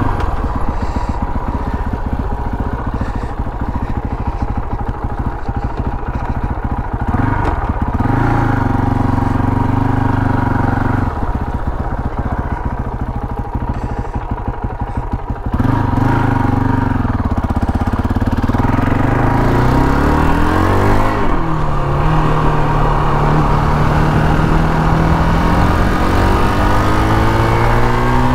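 KTM 525 XC quad's single-cylinder four-stroke engine running at low revs with a choppy, pulsing beat, rising briefly once. About halfway through it gets louder and revs up, its pitch falling and climbing again as it pulls away through a gear change to a steady cruise.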